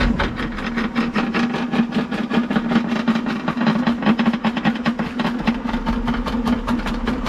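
Electric drain-cleaning machine running with a steady hum while its spinning cable clatters rapidly inside a clogged sewer line.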